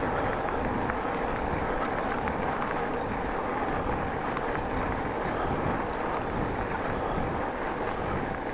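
Steady wind rush on an action camera's microphone while riding a bicycle, with the rolling noise of the ride underneath.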